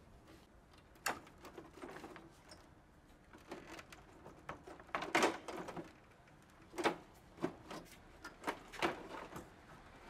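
Plastic housing of a Midea/Carrier portable air conditioner clicking and knocking as its top cover and panel are handled and pulled apart by hand: a string of irregular sharp knocks, loudest a little past the middle.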